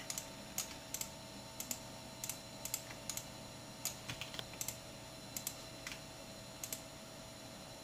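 Irregular clicking of computer keys and mouse buttons, roughly one to three clicks a second with some quick pairs, as edges of a 3D model are picked for a fillet in a CAD program. A faint steady electrical hum runs underneath.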